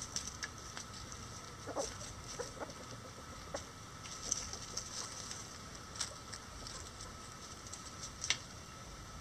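Bantam chickens, a Mille Fleur d'Uccle hen and a lavender Old English Game rooster, pecking at a hanging corn cob and the leaf-strewn ground: scattered sharp pecks and rustles, the loudest near the end. A few soft clucks come about two seconds in.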